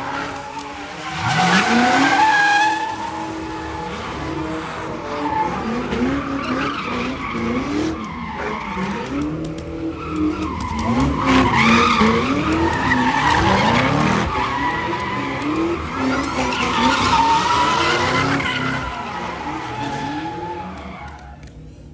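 A car doing donuts: the engine revs up and down over and over while the tyres squeal in long spins. It is loudest about two seconds in, again around the middle and once more later, then dies down near the end.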